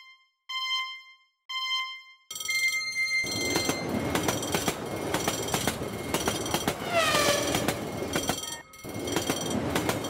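Three bell-like dings about a second apart, then a train passing: a loud rumble with rapid wheel clatter on the rails and a brief falling-pitch whistle partway through.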